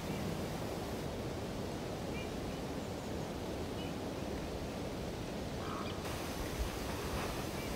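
Steady outdoor background hiss with a few faint, short high chirps; no animal calls out clearly.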